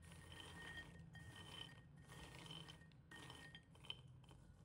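Faint rattle of raw peanuts shifting against a ceramic bowl as fingers stir through them, in several short spells about a second each, with one small click near the end.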